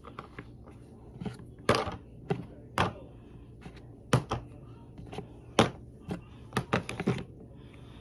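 Plastic slime containers and a plastic box being handled and set down on a tabletop: a string of irregular clicks and knocks.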